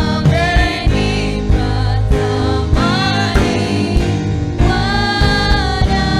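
Swahili gospel choir singing with a full backing band, voices holding long notes near the end.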